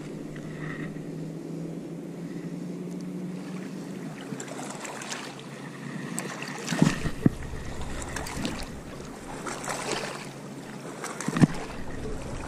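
Handling noise from a light spinning rod and reel, with hard bumps on the microphone about halfway through and again near the end. A low steady hum is there at the start and fades out over the first few seconds.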